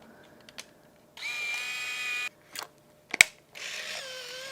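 Canon Sure Shot Telemax compact film camera's built-in motor whining steadily for about a second, then a sharp click, then a second, lower motor whine near the end.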